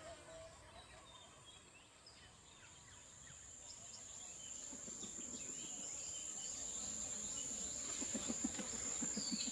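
Swamp ambience: a steady high insect drone swells in from about a third of the way through, with scattered short bird chirps, and a low rapid pulsing sound joins near the end.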